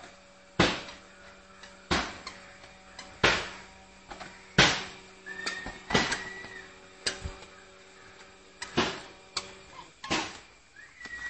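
A ball being kicked along a concrete path: about eight sharp thuds, each ringing out briefly, roughly one every second and a quarter.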